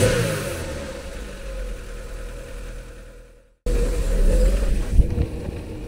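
MG TF engine idling after a short rev that falls back to idle in the first second. The sound cuts off abruptly a little past halfway and then resumes as steady engine running, with a single sharp knock about a second later.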